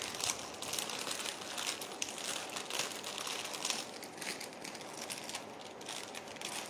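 Crinkling, rustling handling noise made of many small crackles and ticks, as packaging is handled while one jewellery piece is put away and the next is got out.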